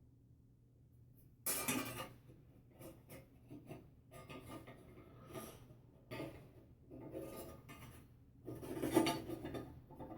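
Metal parts of a bathroom exhaust fan motor and housing being handled and worked on: irregular clinks, scrapes and rubbing, starting about a second and a half in, with the loudest clatter near the end.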